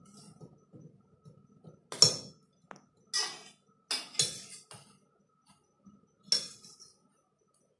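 Metal forks clinking and scraping against stainless steel bowls while noodles are eaten: scattered sharp clinks, a cluster about two to five seconds in and another a little after six seconds.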